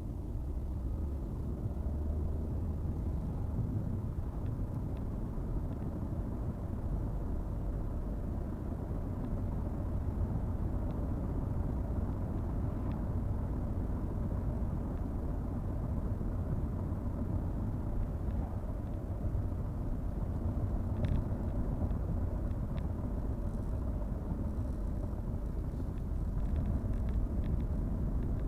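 Car driving along: a steady low rumble of road and engine noise, with a few faint clicks.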